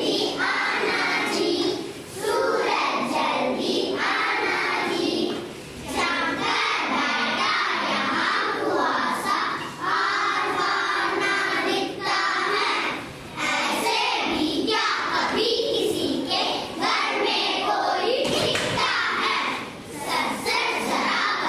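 A group of young children chanting a Hindi action poem in unison in a sing-song voice. They go phrase by phrase, with short breaks for breath between lines.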